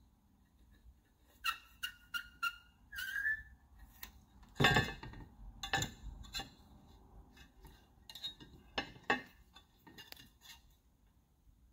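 Light metallic clinks and taps as a steel rule and pencil knock against an aluminum bracket, several with a brief ringing tone, and a couple of louder, duller knocks about halfway through.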